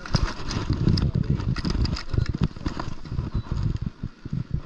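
Close handling noise: irregular knocks, clicks and rustling over a low rumble as a bass is clipped onto a hand-held digital fishing scale.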